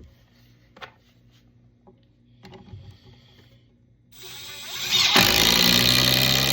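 Milwaukee M12 compact impact driver driving a 4-inch TimberLok screw into wood: a few small handling clicks, then the motor spins up about four seconds in and goes into loud, steady hammering about a second later.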